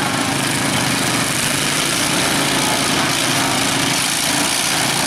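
Derby lawn mower engines running steadily at idle, an even, unbroken small-engine drone.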